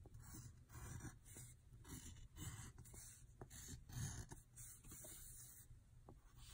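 Faint scratching of a pencil on paper: a run of short strokes, about two a second.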